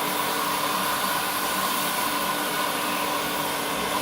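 Paint-stripping heat gun running steadily, its fan blowing a constant rush of hot air with a faint steady whine, melting the wax cappings off a honey frame.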